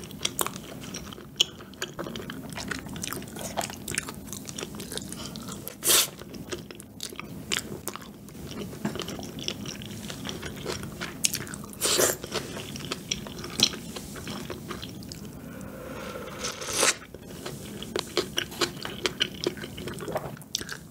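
Close-miked chewing of chewy rice cakes and fish cake in a creamy sauce: wet mouth sounds with many small clicks. Three louder sharp sounds break through, about six seconds apart.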